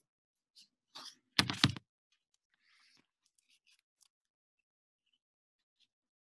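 Handling noise of things being moved close to the microphone: a knock about a second in, then a short clatter, followed by faint rustling, heard over a video call.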